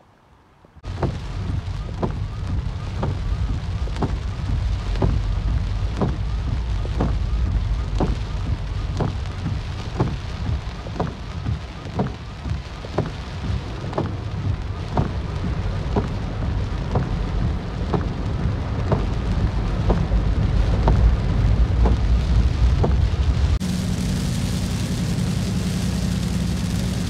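Heavy rain drumming on a car in a downpour, with a deep low rumble and a regular tick about once a second. Near the end the sound shifts to a brighter, steadier hiss of rain on the glass.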